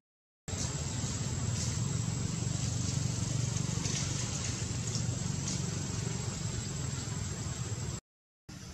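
Steady low outdoor background rumble with a thin, steady high-pitched whine above it. It cuts out briefly at the start and again near the end.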